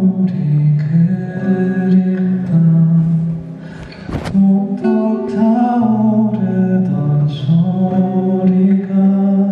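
A man singing a song live, with instrumental accompaniment, holding long notes.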